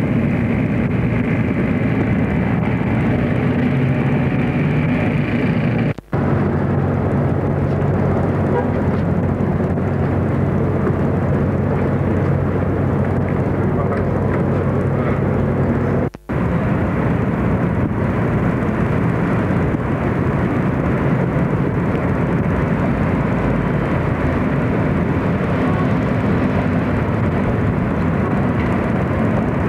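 Steady mechanical drone with a low hum under it, dropping out for a split second twice, about six seconds in and again about ten seconds later.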